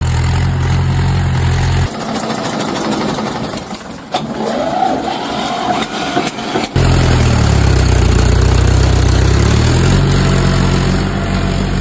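Tractor engine running with a steady low note. It drops out about two seconds in and comes back near seven seconds, its pitch dipping and then rising again.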